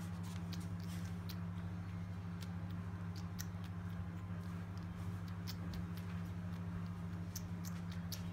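Cat suckling at a shih-tzu's belly: small wet sucking and smacking clicks, scattered irregularly, over a steady low hum.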